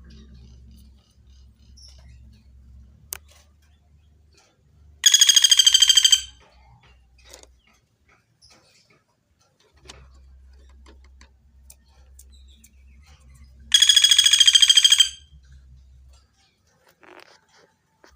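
Common flameback woodpecker (pelatuk bawang) calling twice, about eight seconds apart. Each call is a loud, high trill of fast repeated notes lasting a little over a second.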